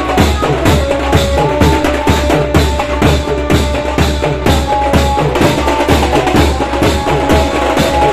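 Indian street banjo band playing: a melody of held notes from the amplified banjo over a steady, fast beat on steel-shell stick drums and a barrel drum.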